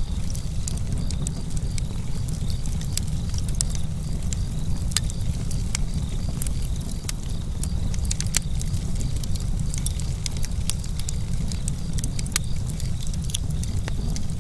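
Campfire crackling, with frequent sharp pops over a steady low rumble of flames and breeze. Crickets chirp in a faint, even pulse behind it.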